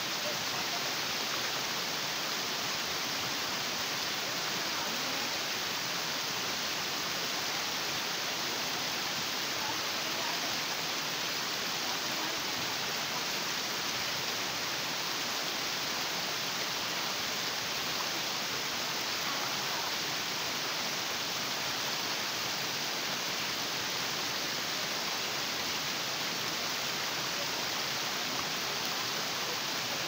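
Shallow stream running over smooth rock slabs and spilling down small cascades between boulders: a steady, even rush of water.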